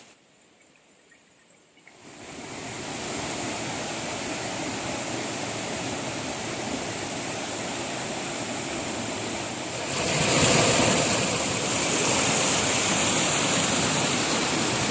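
Waterfall water rushing steadily, starting after a short near-silent gap and growing louder about two-thirds of the way through.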